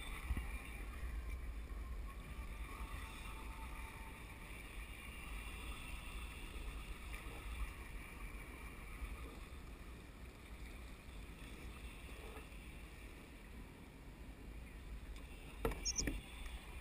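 Wind buffeting the microphone over a low, steady wash of sea water against a kayak hull, with a brief knock and a short squeak near the end.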